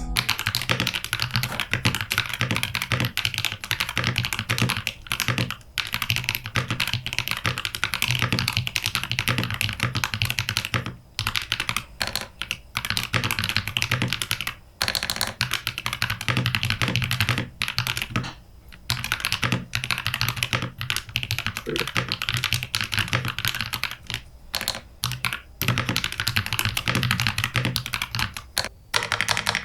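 Typing test on a Keydous NJ80 75% mechanical keyboard with lubed KTT Tofu linear switches, a brass plate and PBT cherry-profile keycaps: fast, continuous typing with key clacks, briefly pausing now and then. The brass plate damps the usually clacky, high-pitched Tofu switches somewhat.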